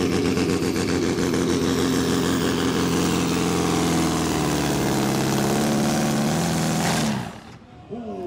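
Competition pulling tractor's diesel engine running flat out under load while it drags the weight-transfer sled, a loud steady drone. About seven seconds in it cuts off abruptly as the pull ends.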